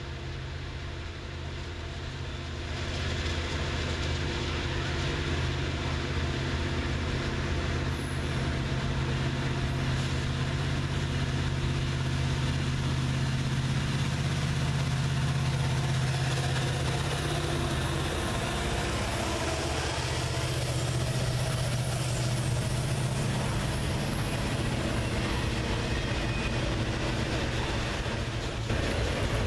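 Norfolk Southern freight train passing: the drone of two diesel locomotives grows louder from about three seconds in and changes as they go by about two-thirds through. It gives way to the rumble of autorack cars rolling past on the rails.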